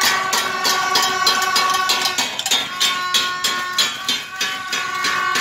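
Metal pots and basins being beaten in a fast, steady rhythm, about four or five strikes a second, with long held horn notes sounding over the banging.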